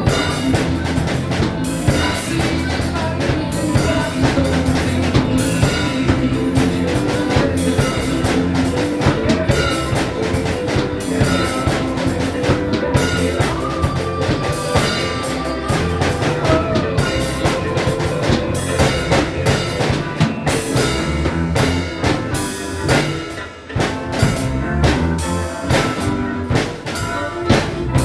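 Drum kit played along with a rock recording: kick, snare and rimshot hits over bass and keyboard backing, with a brief drop in loudness near the end.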